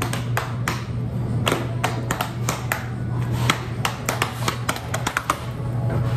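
Hands patting and slapping: a run of irregular sharp taps over a steady low hum.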